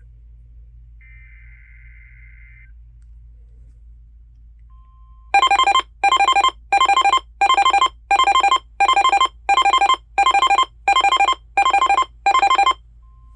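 Weather alert radio's alarm going off: about a dozen loud, harsh electronic beeps at about two a second. A faint tone and a short single beep come before it.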